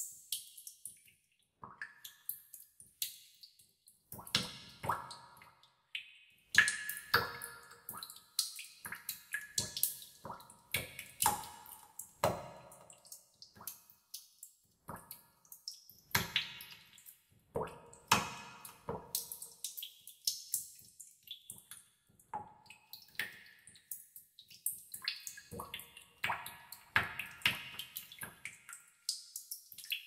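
Water drops falling into water in a tub: irregular plinks of differing pitch, several a second at times, each with a short ringing tail.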